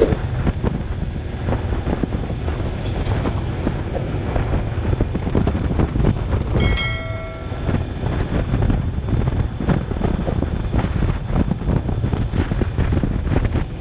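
Wind buffeting the microphone on a moving Honda automatic scooter, over a steady low rumble of engine and tyres on the road. A brief high tone sounds for about a second, about seven seconds in.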